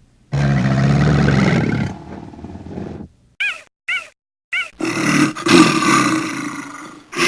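A series of animal calls: a long low call starting about a third of a second in, then three short high calls about half a second apart, then a loud, harsh call from about five seconds on.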